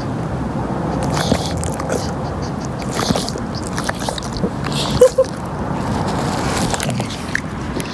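English bulldog chewing and gnawing on a ball: steady wet scraping and biting sounds with scattered clicks, and two short sharp blips about five seconds in.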